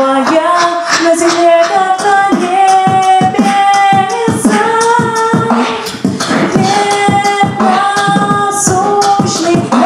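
A man beatboxing a regular beat into a microphone while a woman sings long, held notes over it, an a cappella duet of voice and mouth percussion.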